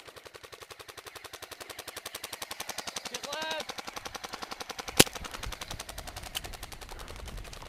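Airsoft M60 machine gun firing one long full-auto burst, a rapid, even stream of shots well over ten a second. A single sharp crack stands out about five seconds in.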